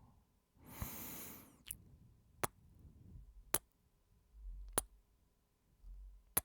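Close-miked ASMR kissing: a short breathy exhale about a second in, then a series of single sharp lip-smack kisses, roughly one a second.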